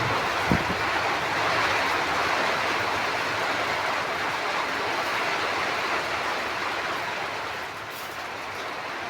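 Steady hiss of heavy rain falling, with a single dull thump about half a second in.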